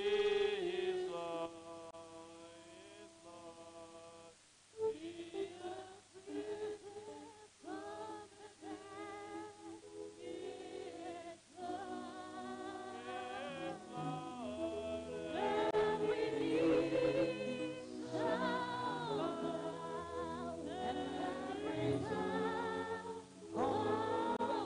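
Choir singing a slow hymn in long held notes, softer at first and growing fuller and louder about halfway through.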